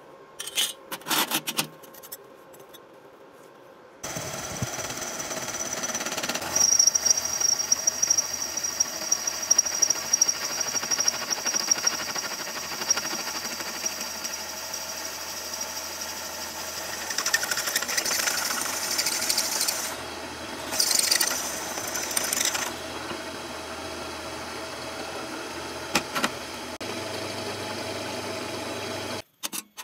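A drill press starts about four seconds in and runs steadily while a twist drill bores through a flat steel bar clamped in a machine vise, with a steady high-pitched squeal from the bit as it cuts. The cutting gets louder twice in the second half, and the machine cuts off suddenly near the end. A few light metal clicks come before it starts.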